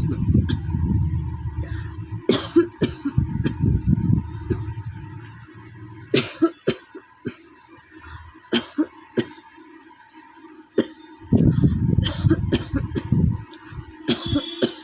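A woman coughing over and over from a cold: a long run of coughs at the start and another about two-thirds through, with sharp single coughs between them. A faint steady hum runs underneath.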